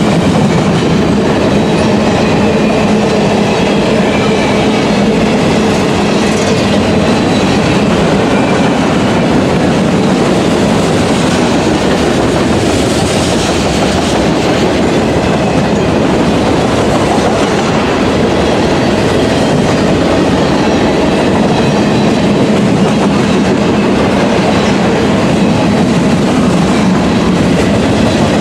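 Freight cars of a CSX freight train rolling past at speed: a steady, loud noise of steel wheels on the rails.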